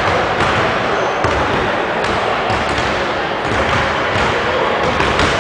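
Basketballs bouncing on a hardwood gym floor over the steady din of a busy gymnasium, with a few sharp bounces standing out.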